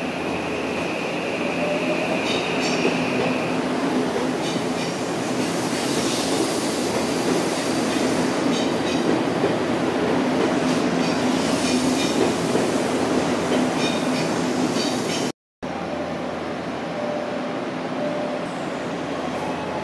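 Odakyu electric commuter train moving along the platform, its steady rumble growing a little louder, with groups of wheel clacks over rail joints and a steady high whine in the first few seconds. The sound cuts off briefly about 15 seconds in and gives way to a quieter, steady rumble.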